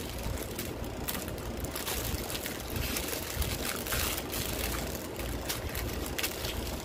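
Clear plastic bag of diamond-painting drill packets crinkling and rustling as it is handled, with the small bagged drills shifting inside.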